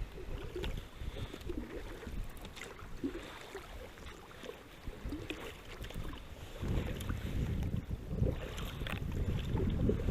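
Wind buffeting the microphone in uneven gusts, stronger in the last few seconds, with scattered light knocks.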